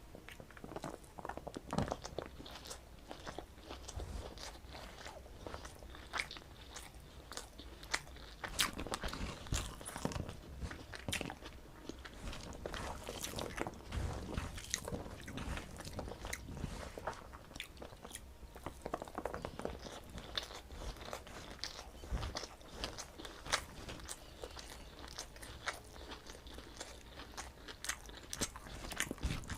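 Close-up eating sounds: a person chewing and crunching mouthfuls of rice with crisp fried bitter gourd and potato, with many small sharp crunches and wet mouth clicks.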